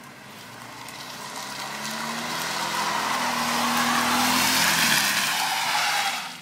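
A front-wheel-drive VW Golf sliding sideways with lunch trays under its rear wheels. The engine runs at steady revs under a harsh scraping hiss from the trays and tyres on the pavement. The sound grows steadily louder as the car comes close and cuts off suddenly near the end.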